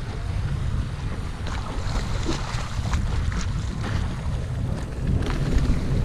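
Wind buffeting the microphone with a steady low rumble, over water moving around a small kayak, with a few short sharp knocks or splashes.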